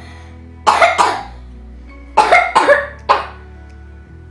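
A child coughing in three short bouts, about five coughs in all, to clear phlegm loosened by a drainage massage for bronchitis. Background music plays throughout.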